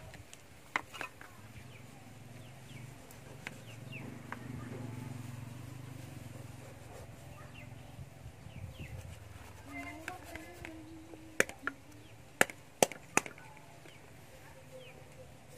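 Large knife chopping into a plucked chicken carcass: sharp chops, two lighter ones about a second in, then a quick run of five near the end, the loudest sounds here.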